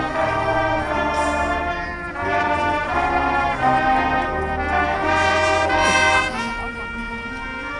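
High school marching band's brass section playing loud sustained chords, easing to a softer held chord about six seconds in.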